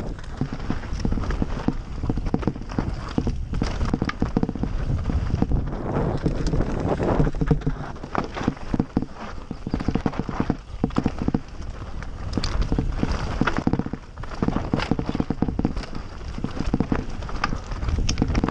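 Mountain bike riding fast down a rocky, gravel trail: tyres crunching over loose stone and the bike rattling with dense, irregular clicks and knocks, over a low rumble of wind on the microphone.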